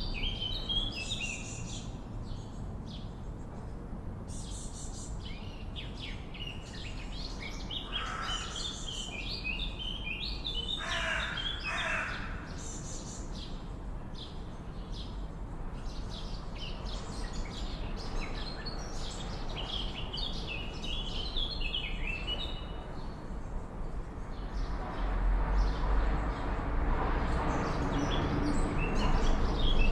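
Swallows twittering in quick, high chirps all the way through, with a few lower, harsher calls about eight and eleven seconds in. A low background rumble grows louder near the end.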